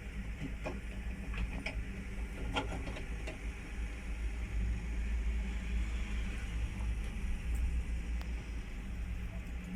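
Liebherr 910 wheel excavator's diesel engine running steadily under load while it works soil, with a few sharp knocks and clatters in the first few seconds.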